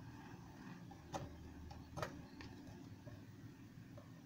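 Light clicks and taps of small parts being handled on a hand-operated plastic film sealer during reassembly, a few irregular ticks with two sharper clicks about a second and two seconds in.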